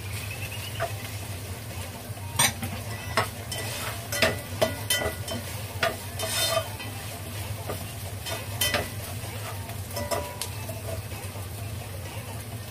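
A utensil stirring and scraping against a pot as mushrooms and minced pork stir-fry, with light sizzling and a dozen or so sharp clicks and knocks, most of them in the first two-thirds. A steady low hum runs underneath.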